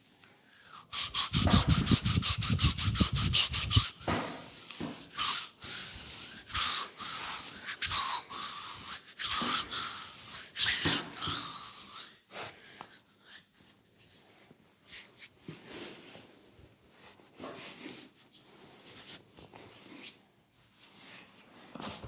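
Massage strokes rubbing on a leg's skin: a run of fast, even rubbing strokes, several a second, for about three seconds, then slower, irregular strokes that grow fainter toward the end.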